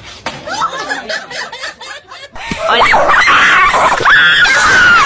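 People laughing in high-pitched bursts, much louder after a sudden break about two seconds in.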